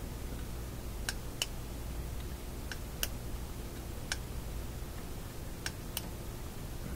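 About seven light, irregular clicks and taps from the small parts of a Philco shadow meter being handled between the fingers, over a steady low hum.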